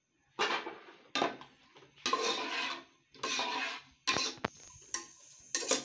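A metal slotted skimmer scraping and clattering against a metal cooking pot in a series of short strokes, about one a second, while stirring chopped onions.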